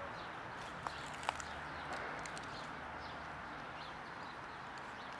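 Steady outdoor background hiss with faint, short bird chirps repeating throughout, and two sharp clicks about a second in.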